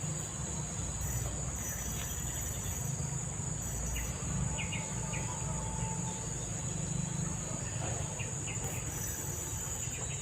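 Insects such as crickets or cicadas making a steady high-pitched buzz, over the low steady rush of a fast-flowing river.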